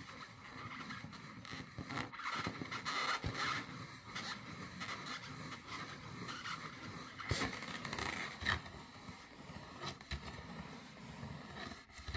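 Scratching on the taut rubber of an inflated balloon: irregular rasping strokes, some louder than others, with no pop.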